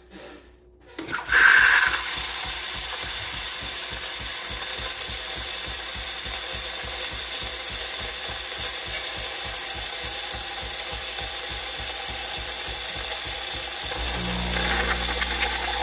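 Philips 4300 coffee machine frothing milk through its LatteGo frother: a sudden start about a second in, then a steady hissing with a fast rattle underneath as hot frothed milk is pumped into the cup. A low hum joins in near the end.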